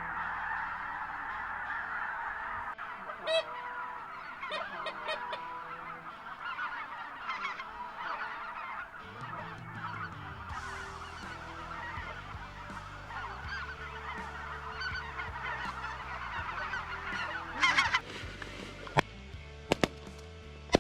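A large flock of geese honking overhead, many calls overlapping in a continuous chorus. Near the end a quick series of shotgun shots cracks out.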